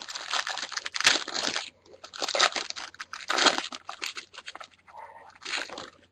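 Wrapper of a sealed trading-card pack crinkling and tearing as it is opened by hand, in several crackly bouts with short pauses.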